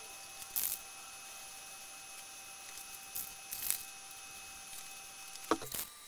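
Aerosol spray-paint can hissing in about four short bursts as paint is sprayed onto a wooden frame, with a sharp knock near the end.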